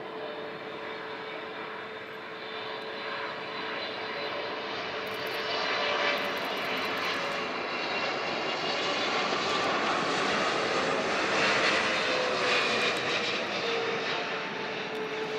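Boeing 777 freighter's twin GE90 turbofan engines at approach power as the jet comes in to land: a steady jet rumble and hiss with a steady whine, growing louder over the first ten seconds or so as it draws near.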